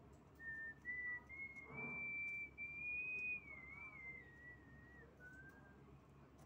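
A woman whistling softly through pursed lips: one clear note that climbs slowly, holds, then wavers back down, stopping a little over five seconds in.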